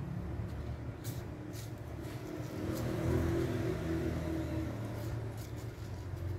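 Low rumble of a motor vehicle engine, swelling about three seconds in and easing off again.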